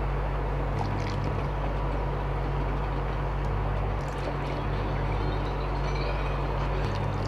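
Induction cooktop humming on a low setting, its low hum shifting in level a few times. Under it, a faint hiss of liquid as cornflour slurry is poured into thin sugar syrup and stirred with a wooden spatula.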